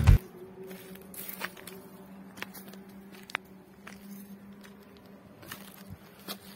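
Scattered footsteps and small crunches on a forest hill trail, over a faint steady hum. Background music cuts off right at the start.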